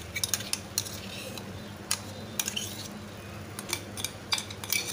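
A spoon scraping and tapping against a mixer-grinder jar as the last of the blended mango puree is emptied into a pan, in irregular clicks with a lull about two seconds in.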